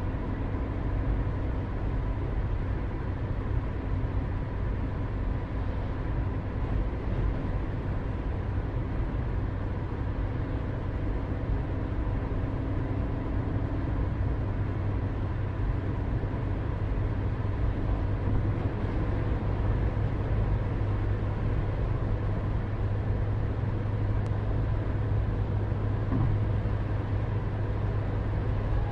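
Steady outdoor town ambience: a continuous low rumble of distant road traffic with a constant hum and a few faint steady tones. The rumble grows a little stronger in the second half.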